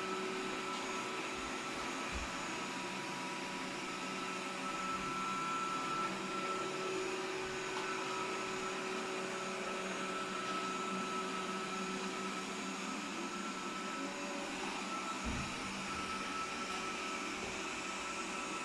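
Robot vacuum cleaner running steadily on its first run, its motor and brushes giving a continuous even hum with several fixed whining tones.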